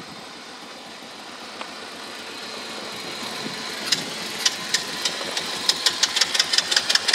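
Small ATV buggy engine running, its sound slowly growing louder, with sharp knocks or pops starting about four seconds in and coming faster, several a second near the end.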